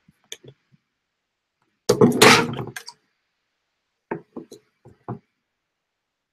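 A few faint clicks, then a loud thud about two seconds in, followed near five seconds by a quick run of light knocks.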